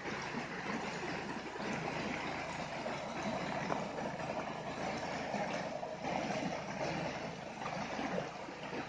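Shallow stream running over rocks, with an electric RC rock crawler's motor and gears whirring as it climbs over roots and rocks on the bank.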